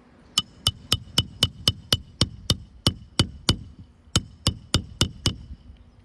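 Hand hammer driving roofing nails through a replacement asphalt shingle: a quick run of about a dozen ringing metal-on-metal strikes at about four a second, a short pause, then five more.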